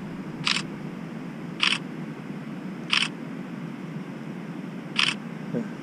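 Smartphone camera shutter sound, four times at uneven gaps of one to two seconds.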